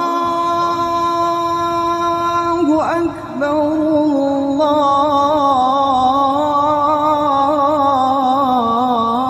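Islamic call to prayer (adhan) sung by a single muezzin: one long held note, a short break about three seconds in, then a long phrase with wavering, melismatic ornaments.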